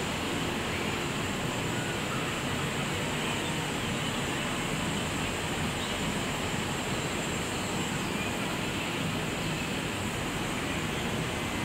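Steady outdoor ambience: an even rushing noise with no distinct sounds in it.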